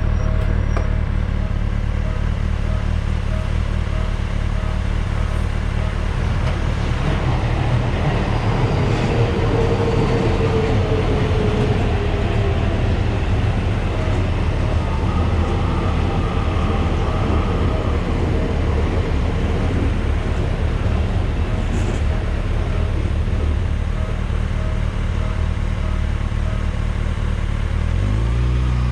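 Railway level-crossing alarm ringing in an evenly repeated ding, over a continuous low rumble of road traffic and engines. A whine swells and fades around ten seconds in, and an engine note rises and falls near the end as a vehicle passes.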